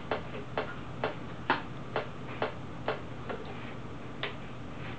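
A series of sharp clicks, about two a second, with a pause near the end, from a knob being turned click by click.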